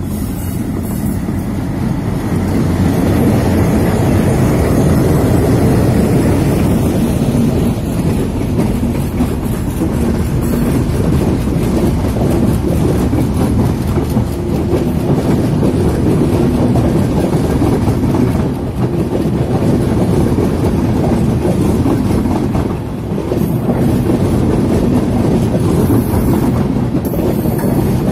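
A diesel-hauled passenger train passing close by: the locomotive goes past first, then a long rake of coaches rolls by with a steady, heavy rumble and the clatter of wheels over the rails.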